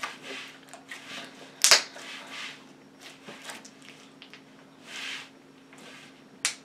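Glitter slime squeezed and kneaded by hand: soft squishing with a few sharp bubble pops and crackles, the loudest pop about two seconds in.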